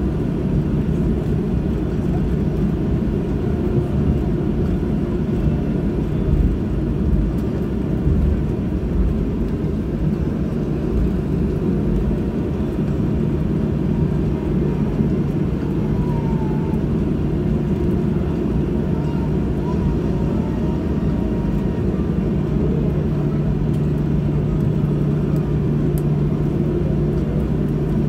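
Airliner cabin noise while taxiing after landing: the jet engines run at low thrust as a steady low rumble with a constant hum, which grows a little stronger in the later part.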